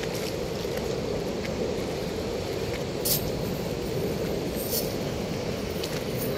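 Steady rushing of water pouring through a weir's sluice gate, with a brief sharp tap about three seconds in.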